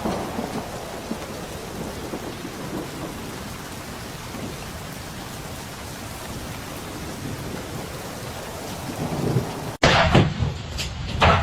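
Strong wind blowing, a steady rushing noise with no breaks. It cuts off suddenly near the end, where louder, uneven sound begins.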